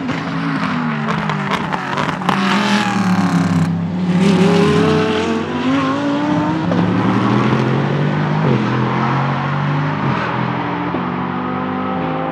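Nissan VK56 5.6-litre V8 of a Ligier JS P320 LMP3 prototype. It runs hard past, falling in pitch with sharp crackles as it downshifts and brakes, then rises in pitch as it accelerates out of a corner, with short steps at the upshifts.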